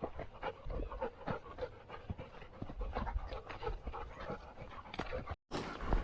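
Dog panting quickly and steadily, heard close up from a camera the dog wears; the sound breaks off for an instant near the end.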